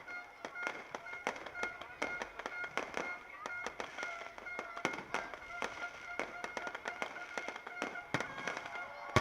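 Fireworks and firecrackers going off in a rapid, irregular stream of sharp bangs, several a second, with steady high tones faintly behind them.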